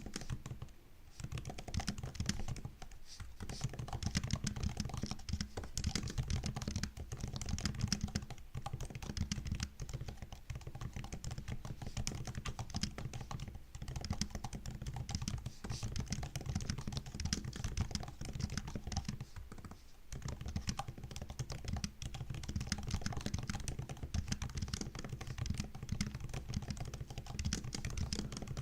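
Steady, rapid typing on a MacBook laptop keyboard: a dense run of key clicks that starts about a second in and goes on with only a few brief pauses.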